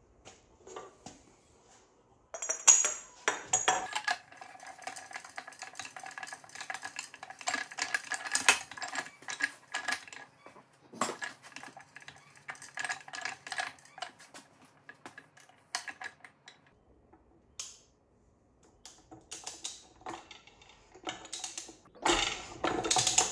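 Steel clinking, rattling and ringing as the spline nut and the carrier-nut socket tool are worked onto the bearing carrier inside a Yamaha F300 lower unit's gear case, with a quick run of clicks near the end as the tool's handle is worked.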